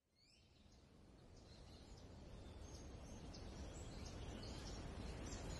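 Faint outdoor ambience fading in from silence and growing louder: a low steady rumble with small birds chirping in short, high notes over it.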